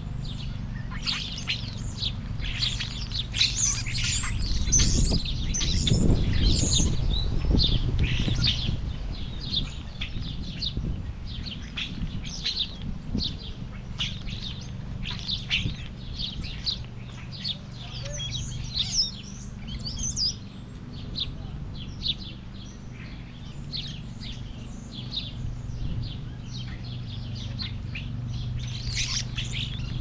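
A flock of small birds chirping busily in many short, overlapping chirps, thickest in the first several seconds. A low rumble swells and fades about five to eight seconds in, over a steady low hum.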